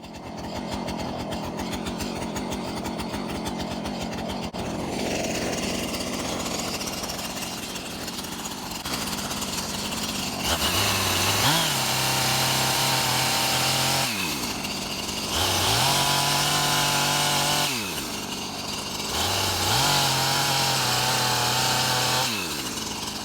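Small chainsaw idling with a steady putter, then revved up to high speed three times, each time held for a few seconds before dropping back to idle.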